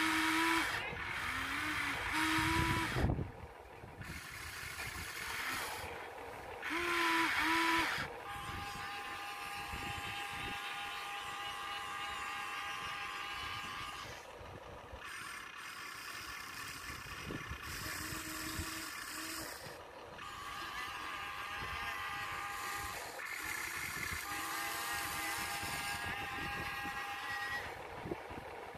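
Huina 1593 radio-controlled excavator's small electric motors and gearboxes whining as it swings the cab and works the boom and bucket. The whine starts and stops again and again, changing pitch with each move, and is loudest near the start and about seven seconds in.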